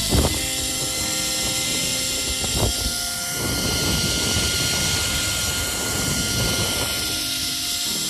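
Wind buffeting the phone's microphone during a zipline ride, with a steady whirring hum that fits the trolley running along the steel cable, and a few brief gusts.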